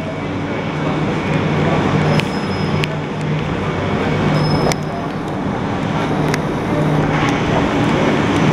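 Southern Class 377 Electrostar electric train standing at a platform, its equipment giving a steady low hum, with scattered knocks and two brief high beeps.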